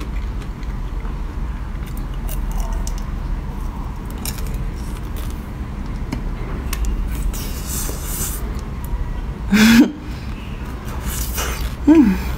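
Close mouth sounds of eating a chocolate-coated ice cream bar on a stick: soft bites, chewing and sucking on the bar, over a steady low hum. Two short voiced sounds come near the end.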